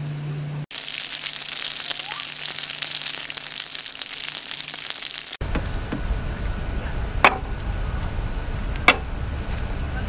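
Food sizzling and crackling on a hot camping griddle; it stops abruptly about five seconds in, giving way to a low rushing noise with two sharp clicks.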